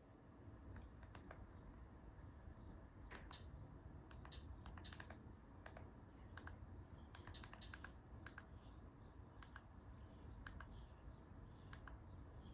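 Faint, irregular clicks of TV remote-control buttons being pressed, against near silence.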